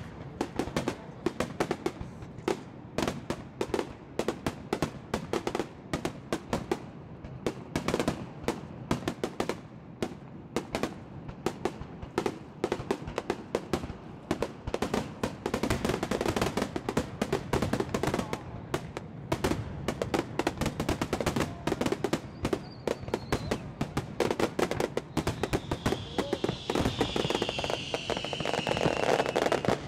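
Fireworks finale: aerial shells bursting in rapid, continuous bangs and crackles, several per second, getting denser from about halfway through.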